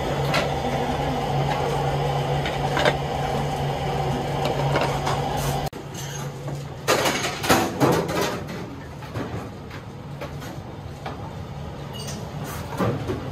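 Steady hum of kitchen machinery with a few clicks, which stops abruptly about halfway through; then a short run of knocks and clatter as serving boxes and trays are handled, followed by quieter kitchen room sound.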